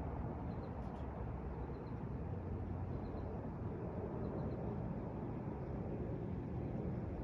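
Low, steady rumble of a distant approaching airliner, with faint high chirps in small groups repeating about once a second.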